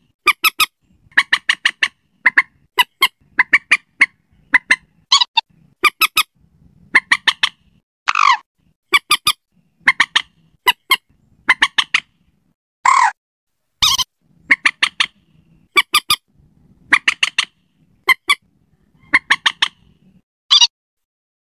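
Lure recording of common moorhen (mandar batu) calls: short, sharp notes in quick clusters of two to four, repeated over and over, with a longer call falling in pitch about 8 seconds in and another about 13 seconds in.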